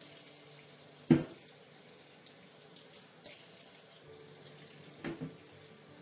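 Water running in a kitchen sink as an old hand saw is washed. The saw gives one sharp knock about a second in, the loudest sound, and a quick double knock near the end.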